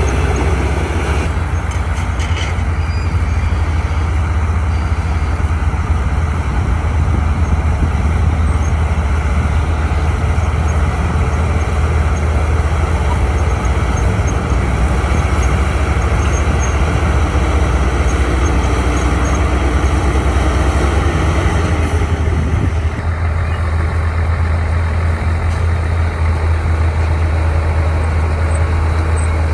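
Heavy diesel engine of earthmoving machinery running steadily with a deep, continuous rumble. The sound changes character slightly about a second in and again near three-quarters of the way through.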